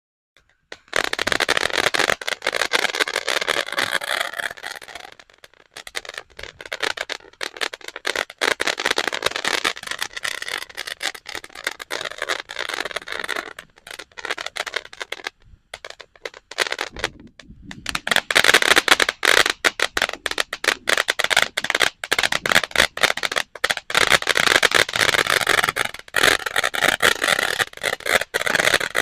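500-gram fountain firework spewing dense, rapid crackling. The crackle thins out with short gaps around the middle, then builds back louder for the rest of the stretch.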